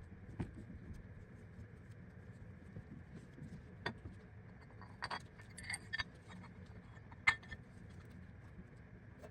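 Light metallic clinks, about six scattered over several seconds, each with a brief ring, over a steady low hum: small metal parts being handled.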